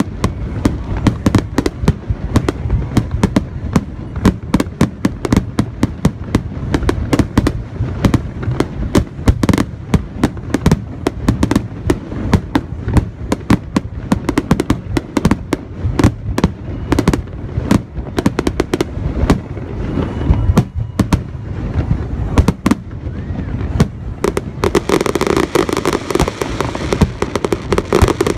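Aerial fireworks finale: a rapid, unbroken barrage of shell bursts, many bangs a second, thickening into denser, more continuous noise near the end.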